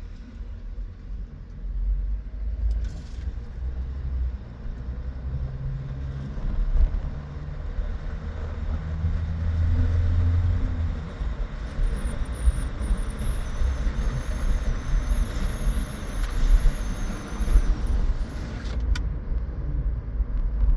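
Low rumble of road traffic, swelling about halfway through as a vehicle goes by.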